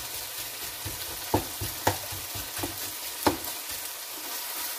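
Sliced beef and onions sizzling as they stir-fry in a hot skillet, with a spatula knocking against the pan a few times.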